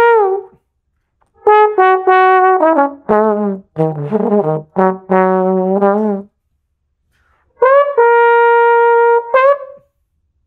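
Tenor slide trombone played solo in short phrases with pauses between them, several notes sliding up into pitch. A lower passage with wavering notes comes in the middle, and a long steady held note comes near the end.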